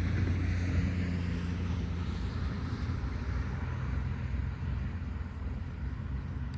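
A steady, low engine-like drone with a hiss over it that swells around the middle.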